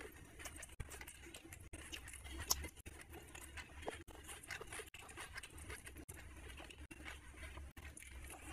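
A hand mixing rice and curry on a ceramic plate: soft, wet squishing with many small clicks of fingers against the plate.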